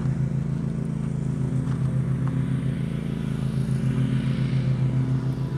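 Car engine running with a steady low hum while the vehicle drives slowly.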